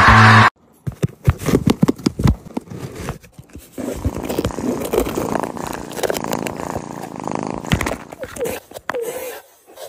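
A loud screaming-marmot meme scream cuts off about half a second in. Then come scattered knocks and scratches, followed by steady rustling and scraping of cardboard as a cat pushes its head and nose into a cardboard box against the camera.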